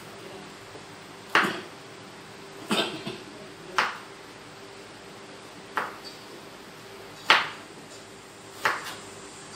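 Kitchen knife chopping ginger on a plastic cutting board: seven sharp knocks of the blade hitting the board at uneven intervals, two of them close together.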